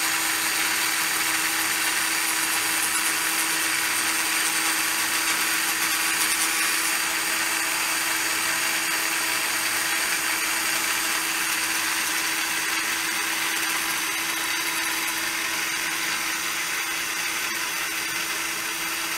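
Motor-driven rotary cutter on a Leinhard rose engine lathe spinning steadily as it cuts facets into a blackwood box: a steady hiss over one constant tone, easing slightly near the end.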